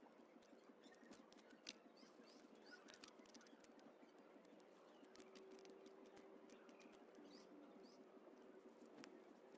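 Faint chirps of small birds, with many scattered sharp clicks and taps and a steady low hum underneath.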